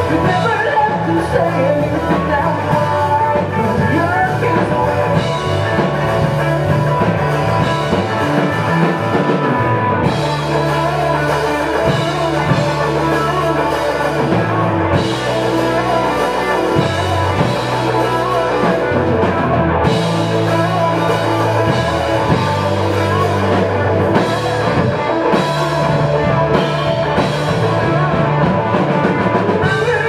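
Live rock band playing a song: electric guitar and drum kit.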